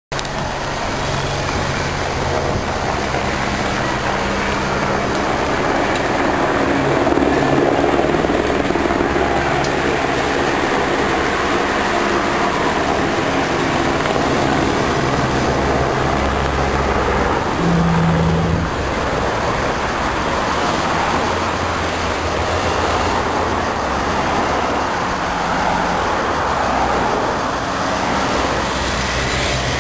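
Escort motorcycles and team cars with roof-rack bikes passing close by in a steady stream behind a cycling peloton, their engines running under a constant wash of tyre and road noise. A brief steady low tone sounds a little past halfway.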